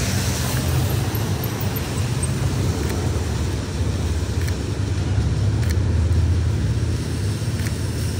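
Steady city street traffic noise: a low rumble with an even hiss over it.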